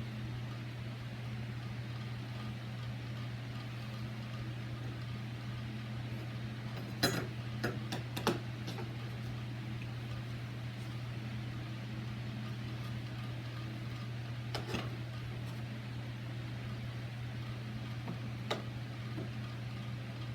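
Steady low hum, with a few light clicks and knocks of deadbolt hardware being handled: a quick cluster about a third of the way in, then single clicks later on.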